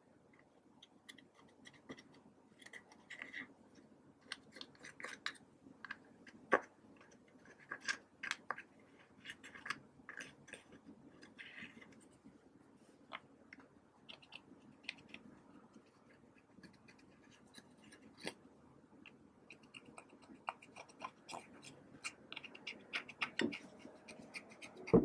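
Pressed eyeshadow being scraped and broken out of palette pans with a small plastic knife: irregular faint scratching with many small crunchy clicks.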